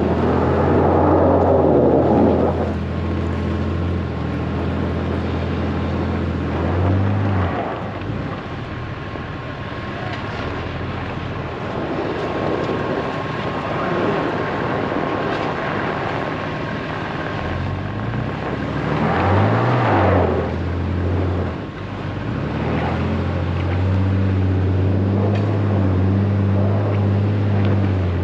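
A vehicle engine running steadily. Its pitch shifts briefly about seven seconds in, and again around twenty seconds, with louder rushing noise at the start and around the second shift.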